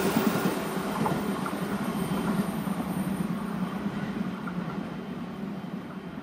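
205-series electric commuter train running past and receding, its wheel and rail noise fading steadily, with a few rail-joint clicks near the start.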